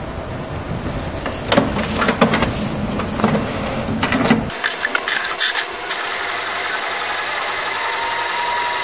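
HP Smart Tank 580 inkjet printer printing a photo on plain paper. Clicks and knocks of the paper feed and mechanism for the first four seconds or so, then a steadier high whirring with a faint whine as the print head runs.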